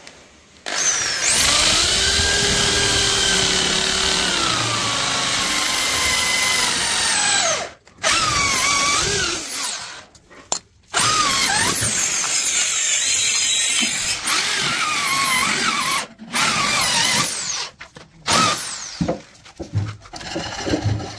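Electric drill running in several bursts: one long run of about seven seconds, then shorter runs with brief stops between them, the motor whine sagging and recovering in pitch.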